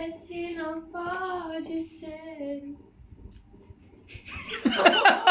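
A high voice sings or croons a short, slightly wavering tune for nearly three seconds. After a short pause, speech starts near the end.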